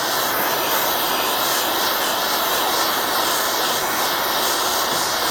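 Jeweller's gas soldering torch burning with a steady hiss, heating a sterling silver buckle and bezel up toward the silver solder's flow temperature.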